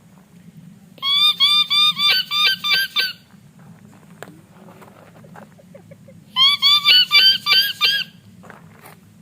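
A man imitating a bird call with his voice: two bursts of rapid, squeaky, arching notes, about eight to a burst and quickening, roughly four seconds apart.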